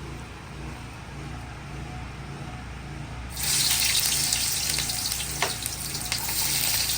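A low steady hum, then about three seconds in a loud sizzling hiss with small crackles starts suddenly: food frying in hot oil in a cooking pot.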